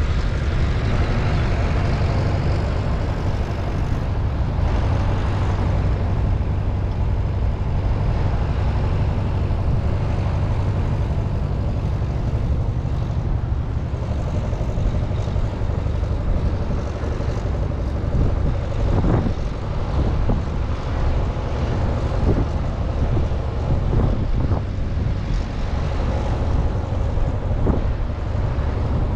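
Steady low rumble of city street traffic, with a few faint knocks now and then.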